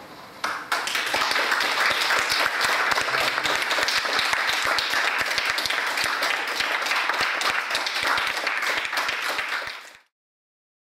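Audience applauding, a dense patter of many hands clapping that starts about half a second in and cuts off abruptly near the end.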